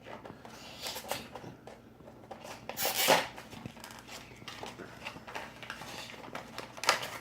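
Toy car packaging being torn open by hand: scattered crinkling and clicking of plastic and cardboard, with a louder crackle about three seconds in and another near the end.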